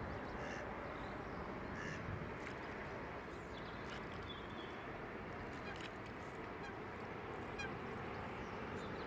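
Steady outdoor background noise with a few short, faint calls from waterfowl scattered through it.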